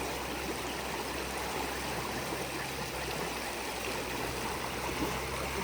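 Steady rush of flowing river water, with a low steady hum underneath.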